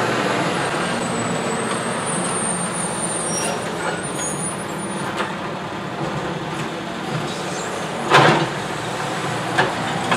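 Automated side-loader garbage truck's diesel engine running steadily as its hydraulic arm grips and lifts a cart, with a loud short burst of noise about eight seconds in and a smaller click near the end.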